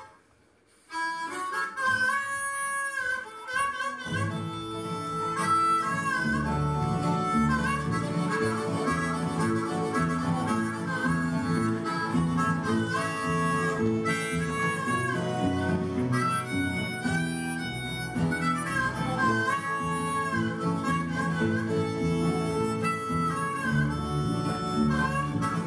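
Harmonica playing a lively bluegrass gospel tune. After a second of near silence it starts alone, and about four seconds in a string band with guitar and fiddle joins in under it.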